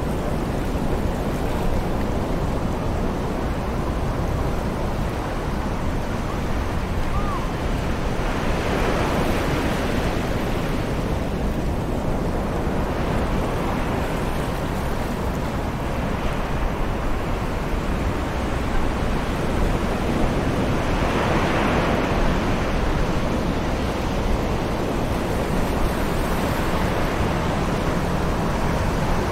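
Distant ocean surf on a beach: a steady wash of waves, with two bigger waves swelling in, about nine seconds in and again around twenty-one seconds.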